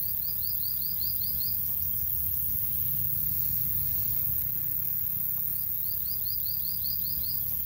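Outdoor garden ambience: a steady low rumble under a faint high insect hiss. Twice, at the start and again near the end, something calls a quick run of about eight short falling chirps.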